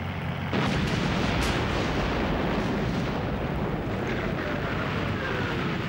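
Battle soundtrack of an artillery barrage: a dense, continuous din of gunfire and explosions that sets in suddenly about half a second in.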